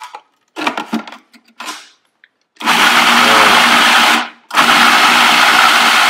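Electric food processor motor blending pesto in two pulses: a run of about a second and a half, a brief stop, then a longer run.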